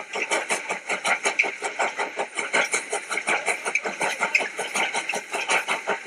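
Steam locomotive chuffing at a fast, even rhythm, about six beats a second.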